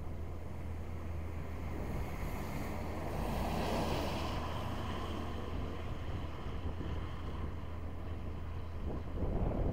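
Steady low rumble with wind noise on the microphone; a louder wash of noise rises and fades about two to five seconds in.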